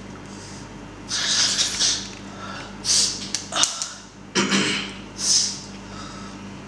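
A man sniffing and snorting hard through his nose, about five short noisy bursts in quick succession. A steady low electrical hum runs underneath.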